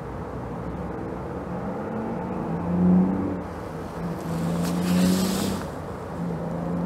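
Low, engine-like drone with a steady pitch, swelling twice, about three seconds in and again between four and six seconds, with a brief rush of hiss at the second swell.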